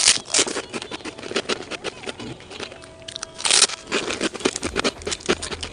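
Rapid clicks and crackles of mussel shells being handled and pried apart for eating, with two louder crunching scrapes, one at the start and one about three and a half seconds in.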